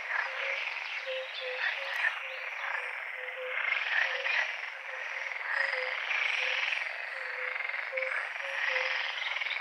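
A dense chorus of many frogs croaking together, their calls overlapping continuously, with short low notes repeating among them.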